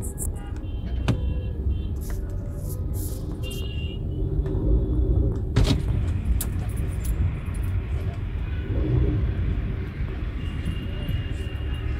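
Steady engine and road rumble of a car driving in city traffic, heard from inside the cabin, with a sharp click about five and a half seconds in.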